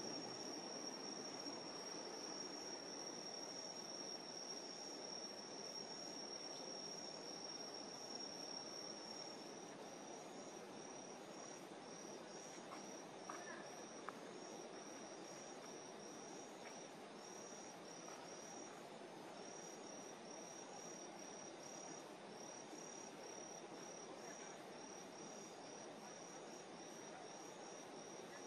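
Night insects, crickets, singing: a high, steady trill that breaks into short, evenly repeated chirps about ten seconds in, over a faint outdoor hiss. A couple of small ticks come about halfway through.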